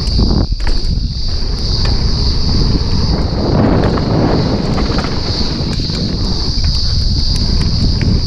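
Wind rushing over an action camera's microphone as a mountain bike, a 2019 Specialized Stumpjumper 29 alloy, descends a dirt trail at speed, its tyres rolling over dirt, with scattered clicks and knocks from bumps. A steady high whine runs underneath, and the rolling noise gets rougher for about a second near the middle.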